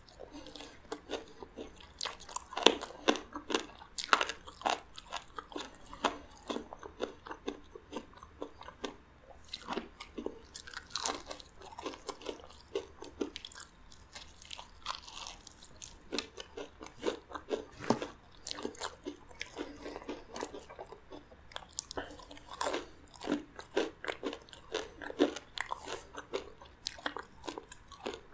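Biting into and chewing crispy breaded fried chicken: the crust crunching and crackling in quick, irregular bursts, with chewing in between.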